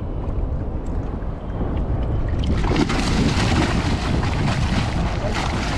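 Wind buffeting the microphone over open sea, a steady low rumble with the wash of water around the raft; a louder rushing hiss comes in about two and a half seconds in.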